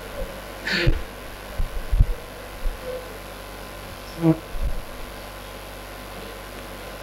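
A microphone being handled over the public-address system: a few dull thumps and a brief hiss about a second in, over a steady electrical hum. The user is fumbling with settings he does not know.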